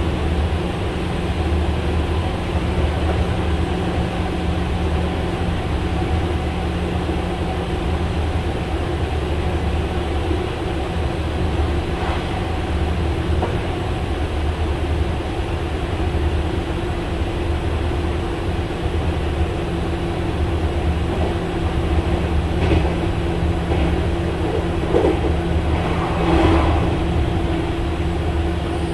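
Meitetsu 5000 series electric train heard from inside the car, running at a steady speed: wheel and track rumble under a steady motor whine from its field-chopper-controlled traction motors. A few short knocks from the track come near the end.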